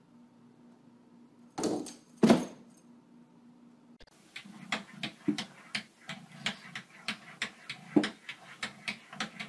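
Two short loud noises about two seconds in. Then a cat's paws tap and scrape against a bathroom mirror in a quick, irregular run of sharp clicks, with a few duller knocks among them.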